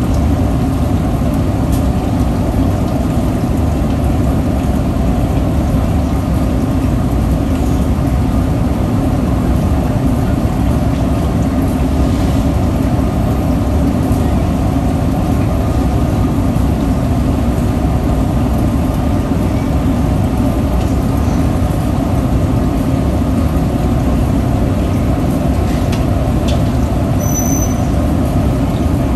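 Steady low roar of a commercial kitchen stove under pots of boiling water, with a few faint clinks of utensils.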